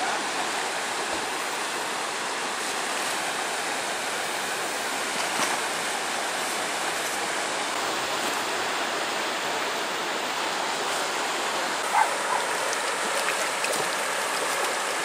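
Fast river water rushing over rocks and rapids, a steady hiss, with a few short, sharper sounds in the last few seconds.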